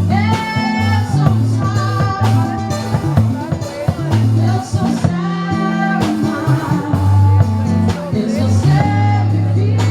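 Band music with a moving bass line, drum hits and guitar, and a held melody line over it.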